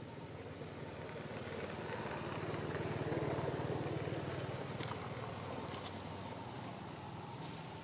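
A motor vehicle passing at a distance: engine noise that swells to its loudest about three seconds in, then slowly fades.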